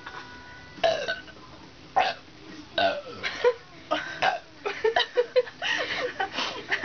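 Burps from people full of carbonated soda: single loud burps about a second apart, then a quick run of short burps near the end.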